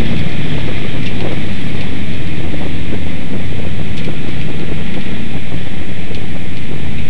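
Limited Sportsman race car's engine running hard at racing speed, heard from a hood-mounted camera. It is loud and overdriven, with wind buffeting the microphone.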